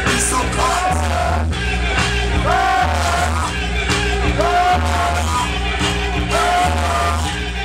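Loud dance music with a steady bass beat and a short sung vocal phrase that repeats about every two seconds.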